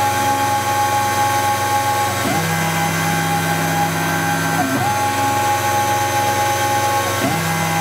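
Pro Light CNC mill cutting a wax block: the spindle and end mill run steadily while the axis motors' whine shifts pitch briefly about every two and a half seconds, as the cutter moves from one pass to the next.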